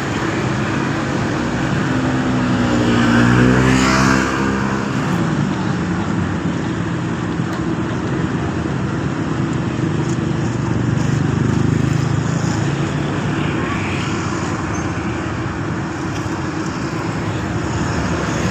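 Steady engine and traffic rumble, with one louder engine passing close about three to four seconds in, its pitch shifting as it goes by.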